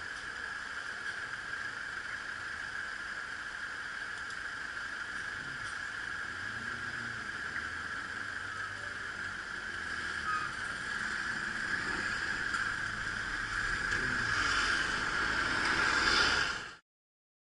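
Road traffic heard through a bicycle-mounted camera: a steady hiss with a low rumble of engines, growing louder near the end as the bike rides off, then cutting off suddenly.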